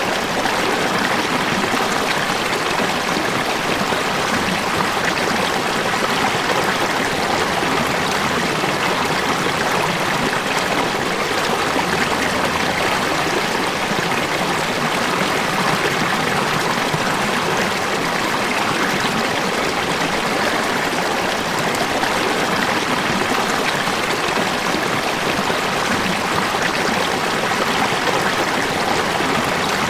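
Falling water running in a steady, even rush that holds unchanged throughout.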